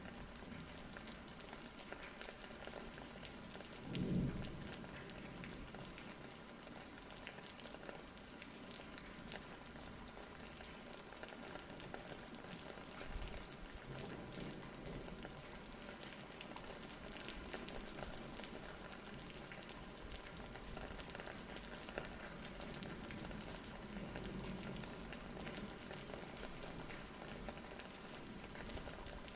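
Steady rain falling, an even patter with fine crackle, and a short low thud about four seconds in.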